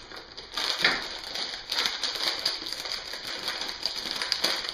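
Loose plastic Lego bricks clicking and clattering against each other as they are handled, in many irregular small clicks.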